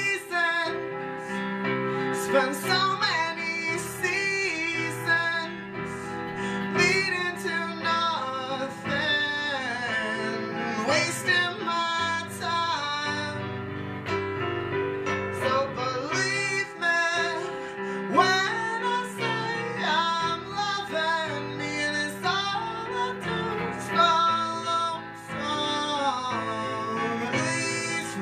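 Instrumental break of an acoustic folk-rock song: a Taylor cutaway acoustic guitar played alongside a Roland V-Combo keyboard, with a lead melody that slides between notes. Near the end the strummed acoustic guitar comes forward.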